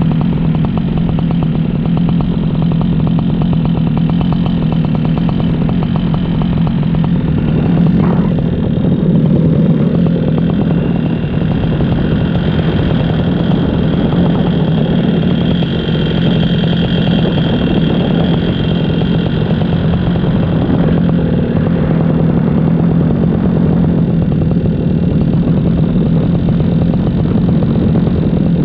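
Paramotor engine and propeller running steadily in flight, with a steady low hum under a dense rush.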